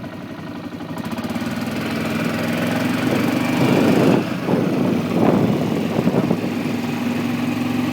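Single-cylinder four-stroke engine of a 1997 Kawasaki Prairie 400 4x4 ATV running steadily, growing gradually louder, with rougher bursts of noise in the middle.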